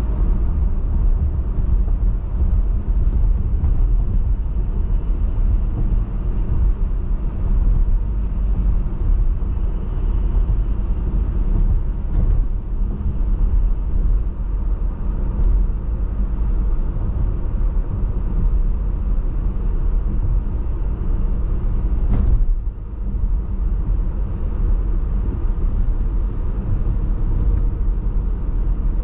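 Car driving: a steady low rumble of road and wind noise, with one brief sharp knock about three quarters of the way through.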